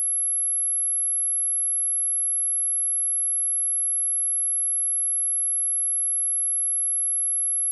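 A steady, unbroken high-pitched pure sine tone at 11125 Hz, a speaker test signal.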